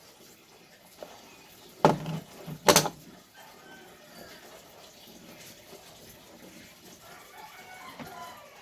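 Two loud metallic clanks of transmission parts being handled, a little under a second apart, then only faint background noise.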